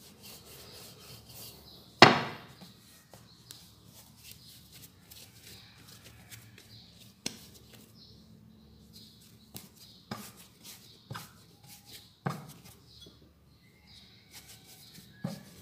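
Wooden rolling pin and hands working donut dough on a board: soft rubbing, with one sharp wooden knock about two seconds in and a few lighter knocks later.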